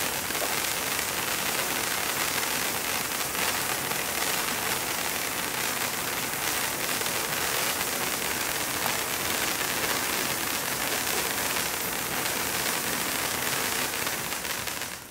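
Black Scorpion Flaming Baton, a handheld spark fountain on a toy light-up sword, spraying sparks with a steady hiss that starts to die down near the end.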